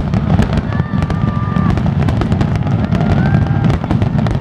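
Fireworks finale barrage: many aerial shells bursting at once, a continuous low rumble of booms under dense, rapid crackling.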